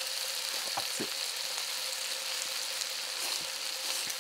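Beef kalbi sizzling in oil in a pan: a steady hiss, with a few faint clicks.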